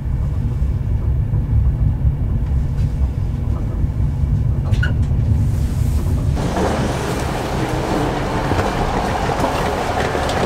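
Passenger train heard from inside the carriage as it runs slowly into the platform: a steady low rumble, with a brief high squeal near the middle. About six seconds in, the sound changes abruptly to a steady broad hiss at the train's open door.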